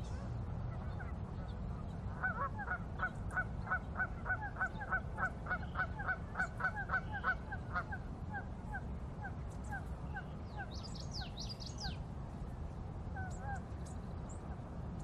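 A bird calling in a rapid series of short, falling notes, about three a second, starting about two seconds in and thinning to scattered notes after about eight seconds. Brief high chirps from a second, smaller bird come about ten to twelve seconds in, over a steady low rumble.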